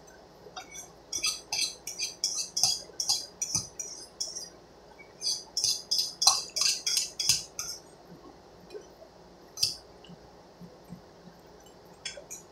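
Metal spoon scraping and clinking against the inside of a stainless steel pot, in two quick runs of strokes a couple of seconds each, then a single clink and a few light ticks near the end.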